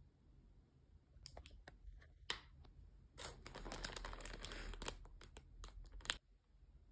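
Plastic film around a biscuit tray crinkling as the tray is handled out of its cardboard box, with scattered sharp clicks and taps. The crinkling is densest in the middle and stops abruptly near the end.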